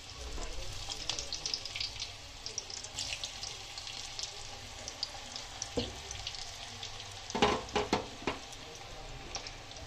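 Hot oil in a kadhai sizzling and crackling steadily as cauliflower and gram-flour koftas deep-fry. A few louder sharp clacks come in quick succession about three-quarters of the way in.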